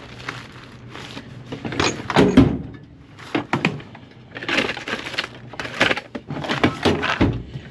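Hands rummaging through a box of tools and hardware: several bursts of clattering and scraping, with sharp clicks of metal parts knocking together.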